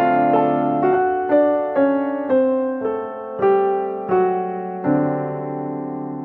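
Background music: a slow solo piano melody, notes struck about twice a second and left to ring and fade.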